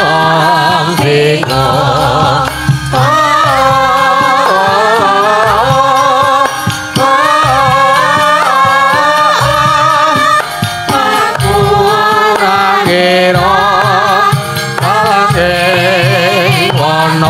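A group of sinden, Javanese female singers, singing a tembang together in long, wavering phrases with vibrato, over instrumental backing.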